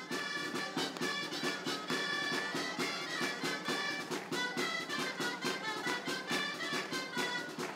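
Lively band music: a brass melody over a quick, steady drum beat.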